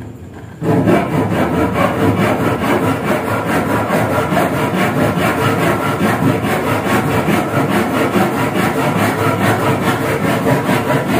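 Continuous rapid scraping of a tool on wood, starting just under a second in.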